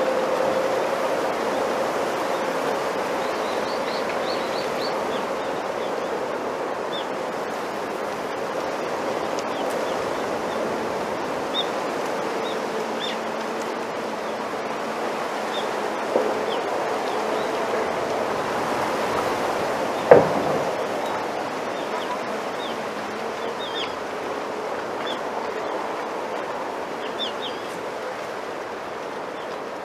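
Bamboo leaves rustling steadily in the wind, a continuous soft hiss that slowly fades, with faint short high chirps scattered through it. A sharp knock stands out about twenty seconds in.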